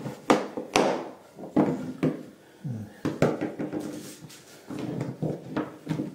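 Ribbed metal log-cake tins knocked and set down on a wooden cutting board as baked sponge rolls are turned out of them: a string of irregular hollow knocks and clatters.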